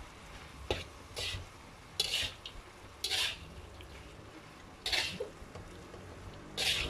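Slotted metal spatula scraping and clacking against a wok while stir-frying rice, in about six short strokes spaced irregularly over several seconds.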